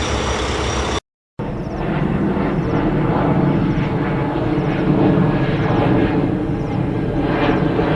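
Airplane engine noise, a steady rumbling roar that starts after a brief silent cut about a second in. Before the cut, the tail end of a dump truck's engine sound.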